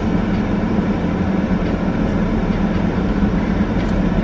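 Steady mechanical drone with a constant low hum and rumble, unchanging throughout.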